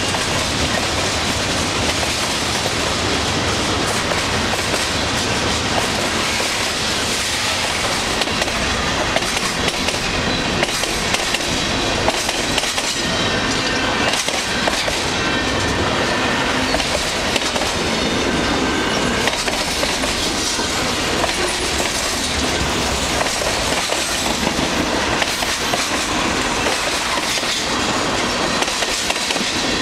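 Freight cars of a long mixed freight train rolling past at speed: a steady rumble and rattle of steel wheels on the rails, with irregular clacks as the wheels cross rail joints.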